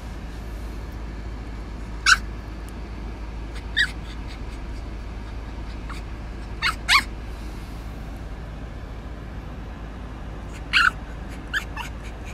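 Bulldog puppy whimpering: a handful of short, high-pitched squeaks spaced a second or more apart, two close together in the middle and a cluster near the end, over a steady low background hum.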